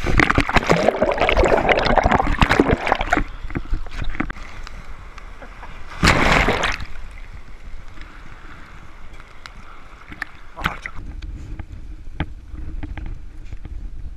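Seawater splashing and sloshing right at a camera held at the waterline in the surf. A loud rush of splashing fills the first few seconds, a second short burst comes about six seconds in, and quieter sloshing with scattered clicks follows.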